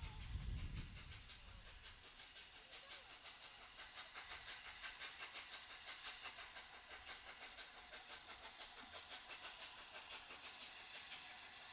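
Steam locomotive approaching in the distance, its exhaust beating out a faint, steady run of rapid chuffs with a hiss of steam. Low wind rumble on the microphone in the first second or so.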